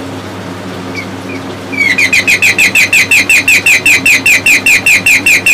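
Electronic bird-chirp alarm sounding: a rapid, evenly repeated run of short falling chirps, about six a second, starting about two seconds in after a steady hum.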